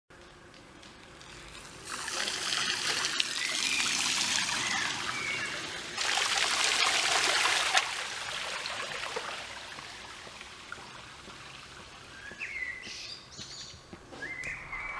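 Rain falling into puddles and rainwater trickling along the street edge, louder in stretches, with a few short bird chirps.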